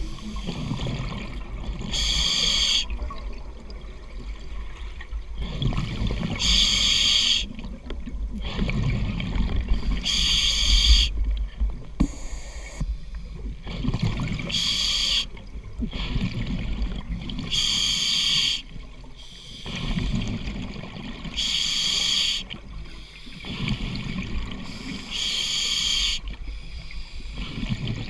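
A scuba diver breathing through a regulator underwater. A short hiss comes about every four seconds, seven in all, with low rumbling bubble noise between the breaths.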